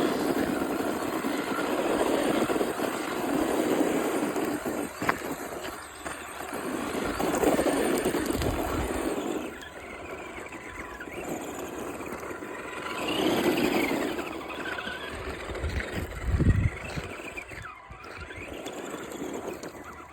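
Radio-controlled toy car being driven hard: its motor whines up and down in pitch with bursts of throttle, and its tyres scrub and skid over the ground.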